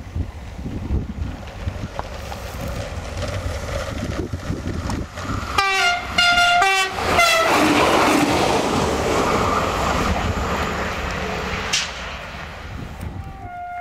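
Diesel railcar sounding two short horn blasts as it approaches, then passing close by loudly, with another horn note near the end. Gusty wind from a strong mistral rumbles on the microphone throughout.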